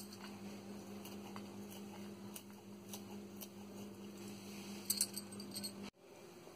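Scissors snipping a green leaf into fine pieces over a steel plate: scattered faint snips and light clicks, a sharper pair about five seconds in, over a steady low hum that cuts off abruptly near the end.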